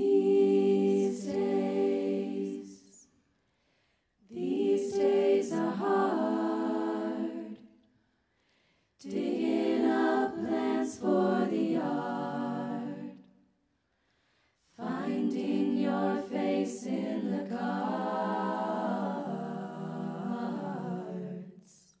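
Women's a cappella group singing held chords in close harmony, without instruments, in four phrases separated by short silences.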